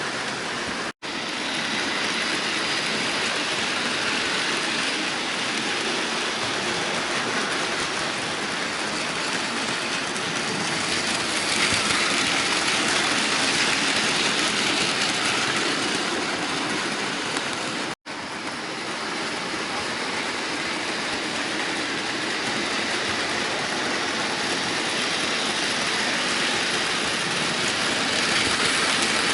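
Bachmann model train running on the layout track: a steady whirring and rattling of motor and wheels on the rails. It drops out for an instant twice, about a second in and again about eighteen seconds in.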